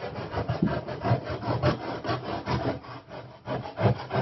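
Knife sawing back and forth through the cardboard of a box, a quick, even run of short cutting strokes.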